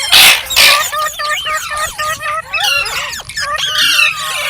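Indian ringneck parrot calling: two loud, harsh screeches in the first second, then a quick run of chirps and whistles.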